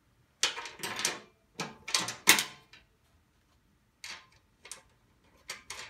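Metal clinking and rattling in several short bursts as a skid plate and its bolts are fitted to the side of a snowblower's auger housing by hand.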